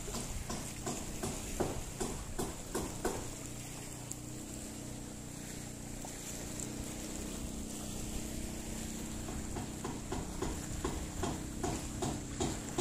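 Small boat's engine running with a steady low hum, with quick runs of light knocks at the start and again near the end.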